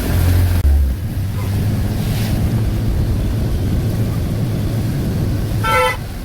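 Auto-rickshaw engine running steadily while it drives through floodwater, with water rushing and wind buffeting the microphone. A short high-pitched tone sounds near the end.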